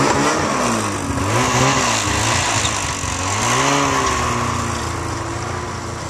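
Engine of the vehicle towing a snowboarder on a rope, revving up and down and then holding a steadier pitch as it pulls, over a steady hiss.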